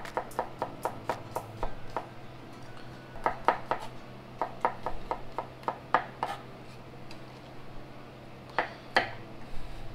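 Chef's knife slicing garlic cloves on a wooden cutting board: quick runs of sharp taps, with a lull of about two seconds after the middle before a last few strikes.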